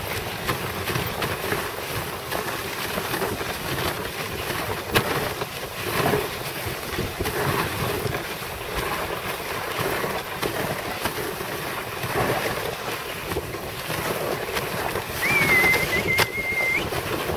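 Dog sled gliding over hard, wind-packed snow: a steady rushing scrape of the runners, with wind on the microphone and the odd knock. Near the end a thin high squeal holds for about a second and a half.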